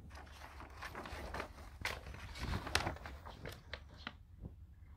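Rustling and irregular light clicks and knocks of a reflective mesh sheet being handled and wrapped around a plastic storage tank, growing quieter about four seconds in.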